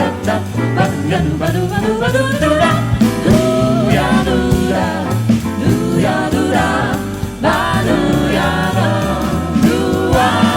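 Vocal group singing wordless close harmony over a stepping bass line, one voice sliding up in a long rising glide during the first few seconds.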